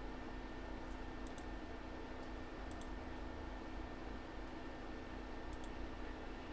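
Faint, scattered light clicks, several in quick pairs, like computer mouse or keyboard clicks, over a steady electrical hum.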